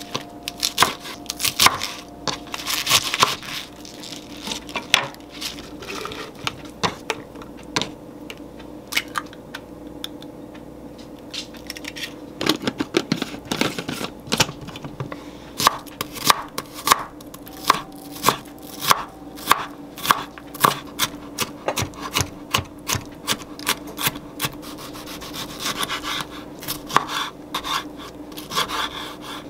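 Chef's knife cutting on a wooden cutting board, through spinach stems and then onion and tomato, in runs of sharp taps. A short noisy burst comes about twelve seconds in, and a faint steady hum runs underneath.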